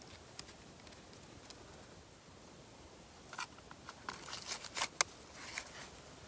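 Close handling of small gear by hand: a few light clicks, then a cluster of sharp clicks and crinkling rustles from about three to six seconds in.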